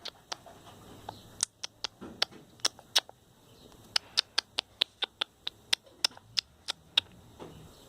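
A run of light, sharp clicks, irregular at about three to five a second, starting about a second and a half in and stopping near the seventh second.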